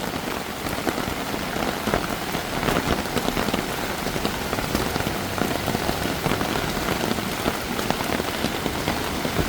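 Heavy monsoon rain falling steadily, a dense wash of sound with many separate drop hits.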